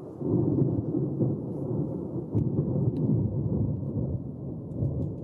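Thunder rolling: a continuous low rumble that swells in just after the start and surges a few times, with nothing in it above the low range.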